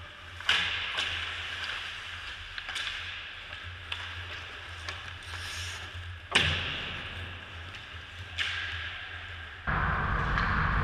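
Ice hockey play in an echoing rink: a series of sharp knocks and clacks of puck and sticks, about six in all, the loudest about six seconds in, over a steady low hum. Near the end a steady, louder rushing noise starts abruptly.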